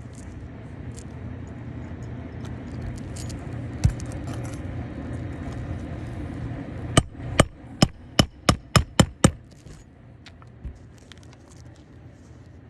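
Hammer striking a roofing snake about nine times in quick succession, the blows coming a little faster toward the end, driving a roofing nail through the shingle into the decking beneath the shingle above. A single dull thump comes about four seconds in.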